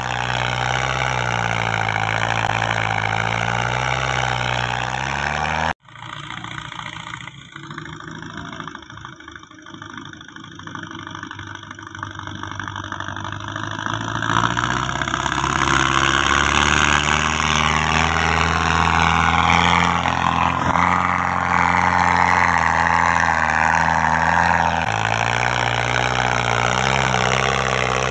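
Belarus 510 tractor's diesel engine labouring under load as it pulls a fully loaded sugarcane trolley, its note rising and falling. The sound drops out abruptly about six seconds in, returns quieter, and builds back up to a steady, loud pull.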